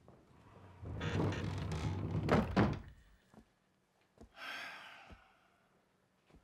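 A door being opened: a rattling noise lasting about two seconds that ends in two thuds. A couple of seconds later comes a brief high swish.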